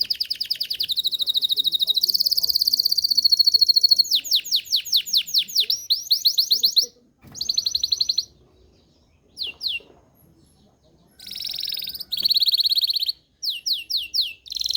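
Belgian canary singing in phrases of fast rolling trills and rapid repeated sweeping notes, high-pitched, with a pause of several seconds midway before the song resumes.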